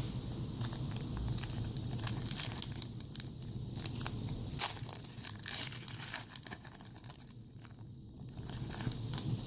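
Foil wrapper of a trading-card pack being torn open and crinkled, in a run of sharp rips and rustles that are loudest in the middle.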